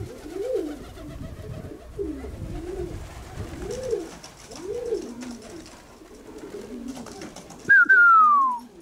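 Racing pigeons cooing at the loft, a low call that rises and falls about once a second, with wing flaps as birds come in and land on the roof. Near the end a loud whistle glides down in pitch.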